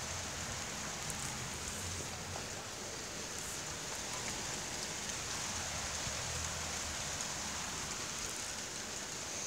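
Steady rain falling in a thunderstorm, a continuous even hiss of drops.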